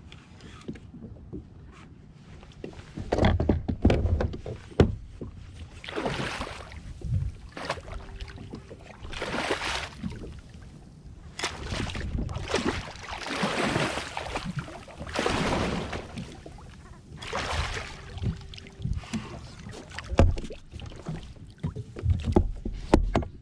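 Water splashing repeatedly beside a plastic kayak as a hooked lingcod is fought to the boat, in uneven surges every second or two, with a few dull knocks on the hull.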